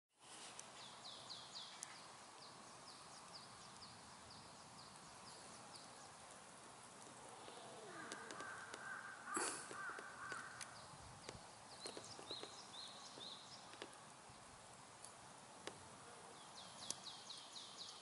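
Songbirds singing faintly in spring woodland: quick runs of high, repeated descending notes at the start and again near the end, and a lower repeated phrase about halfway through. A single sharp knock sounds a little after the halfway point.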